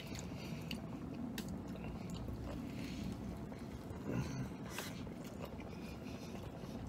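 A man biting into a chicken and avocado burrito and chewing it, with many small wet mouth clicks and smacks. The bite comes around four seconds in.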